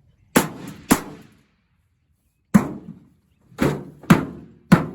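Six hard blows striking an old microwave oven's metal casing, unevenly spaced, with two pairs in quick succession; the last blow leaves a short ringing tone.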